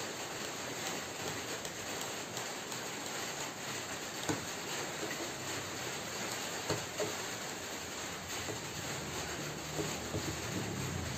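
A long metal tool scraping and clicking lightly inside the plastic motor housing of a Stanley circular saw, a few faint clicks over a steady background hiss.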